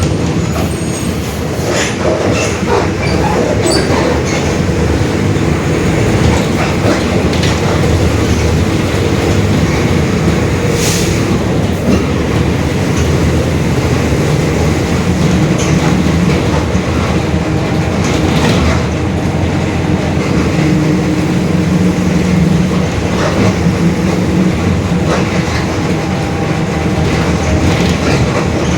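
Mercedes-Benz OF-1721 Bluetec 5 bus under way: a steady engine and driveline drone with the differential droning, its pitch shifting as the speed changes, over scattered rattles and knocks from the body.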